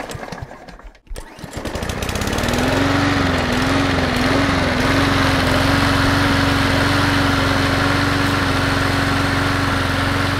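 A short noisy burst, then a small lawn mower engine starts about a second in. It builds up, its pitch wavering for a couple of seconds before settling into a steady run.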